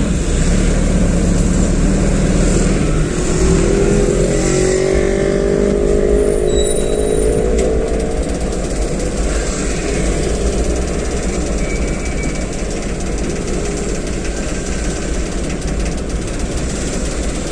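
Road traffic heard up close: vehicle engines running with a steady low rumble, and one engine's pitch rising from about three to eight seconds in as a vehicle accelerates, with a large cargo truck moving right beside the microphone.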